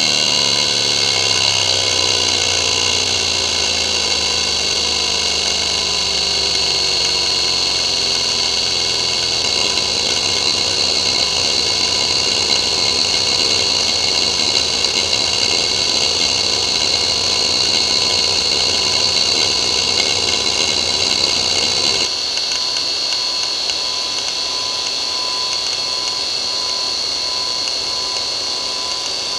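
IBM Travelstar DVAA-2810, a 2.5-inch three-platter hard drive, seeking rapidly and without pause under a seek benchmark: dense seek chatter from the head actuator over a steady high whine. About 22 seconds in, the chatter drops sharply and only the lighter sound of short track-to-track seeks remains.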